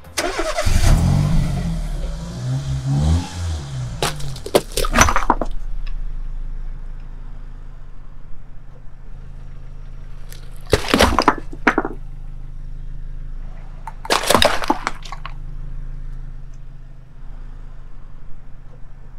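Car engine running with a steady low hum. A soda-filled watermelon cracks and bursts under the car's tyre about eleven seconds in, and a second burst follows about three seconds later; the opening seconds are loud and noisy with a wavering low sound.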